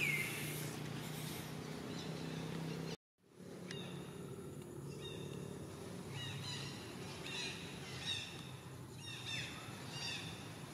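Outdoor ambience with a steady low hum and short, high animal calls that fall in pitch: one at the very start, then a series of about two a second in the second half. The sound drops out completely for a moment about three seconds in.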